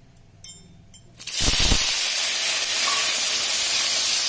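Boiled elephant apple slices tipped into hot oil in a steel kadai: a couple of light clinks, then a little over a second in a dull thump as they land and a loud, steady sizzle of frying that carries on.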